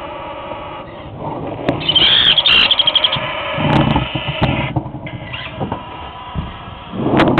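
Baby parrot chicks begging: harsh, squeaky calls, the loudest a rapid pulsing chatter about two seconds in, with lower, louder calls at about four seconds and again near the end.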